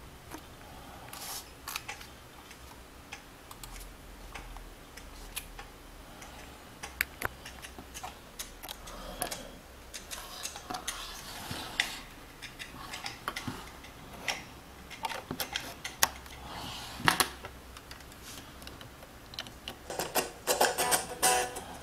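Small plastic device and its packaging being handled: scattered clicks, taps and short rustles at irregular intervals, coming thicker near the end.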